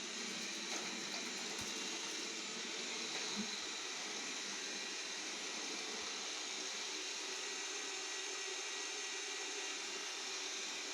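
Xiaomi Mijia 1C robot vacuum cleaner running: a steady fan hiss with faint high whining tones, and a few light knocks.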